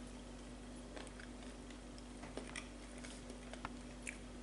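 Faint chewing of a bite of oat-and-banana cookie, with small scattered clicks from the mouth, over a steady low hum.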